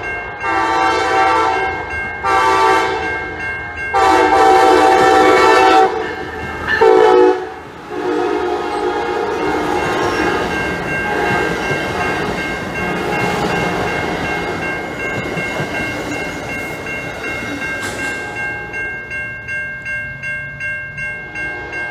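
Amtrak passenger train's Siemens Charger locomotive sounding a series of horn blasts, the longest about four seconds in and a short one near seven seconds. The train's cars then pass close by with a steady rumble and wheel clatter on the rails, while the grade-crossing bell rings on, its pulsing clearer as the train noise fades near the end.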